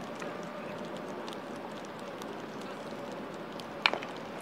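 Baseballs clacking as they are tipped from one plastic crate into another: a few scattered light clicks, then one sharp knock near the end, over steady background noise.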